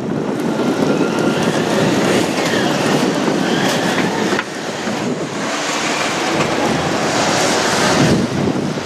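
A Kintetsu Minami Osaka Line electric train passing close by at a level crossing: wheels rumbling and clattering over the rail joints, easing briefly about four and a half seconds in before the noise builds again.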